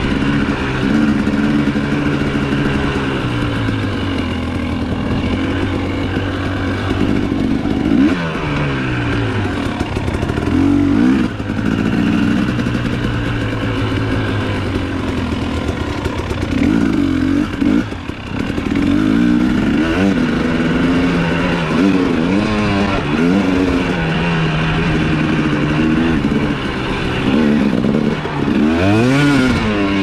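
KTM 250 SX single-cylinder two-stroke dirt bike engine running under riding load. It holds steady throttle for stretches, and its revs rise and fall sharply several times, near the middle and again near the end.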